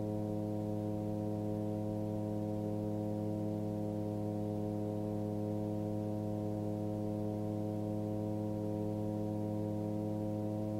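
Titan Tornado light aircraft's engine and propeller in steady cruise: an unchanging low drone made of many held tones, with nothing high-pitched.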